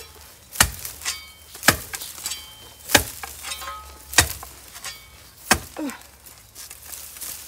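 A long-handled digging tool chopping down into soil and bamboo roots to dig out a bamboo clump: five sharp strikes, roughly one every second and a bit, some with a faint metallic ring.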